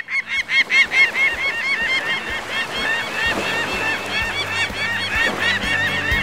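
A flock of birds calling, many short arched calls overlapping several times a second.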